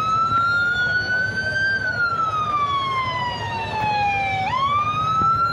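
Police car siren wailing loud and close. Its pitch climbs slowly, falls slowly over a few seconds, then jumps sharply back up near the end. A low rumble of street noise lies beneath.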